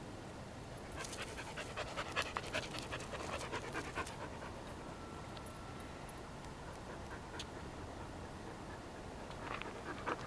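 A dog panting in quick breaths, mostly in the first few seconds and again near the end, with a quieter stretch between.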